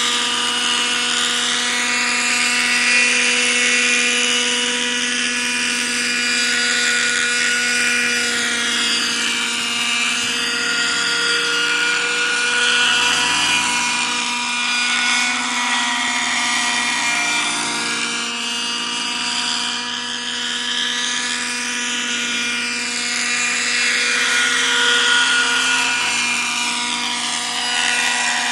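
Thunder Tiger Raptor 50 nitro RC helicopter in flight: a steady, high engine and rotor whine whose tone sweeps up and down as the helicopter moves back and forth.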